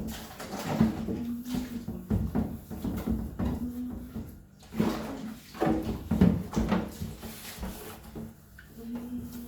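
Repeated knocks and clatter of containers, shelves and drawers being handled while a fridge is cleaned and restocked.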